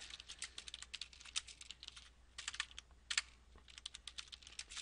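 Typing on a computer keyboard: quick runs of keystroke clicks, broken twice by short pauses.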